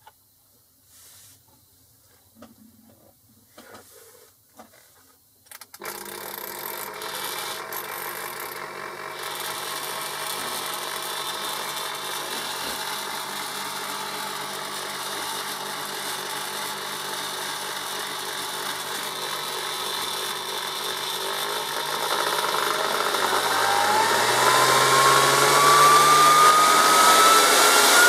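Hitachi Super Mixer VA-700 blender motor, jar empty, starting suddenly about six seconds in after a few faint clicks from the controls and running steadily. Over the last several seconds its whine rises in pitch and grows louder as the speed slider is pushed up toward the top setting.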